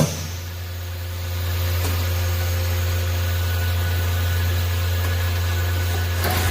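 Drawer-type skin packaging machine running with a steady low hum, getting a little louder about a second and a half in, with a faint click about two seconds in and a short burst of noise near the end.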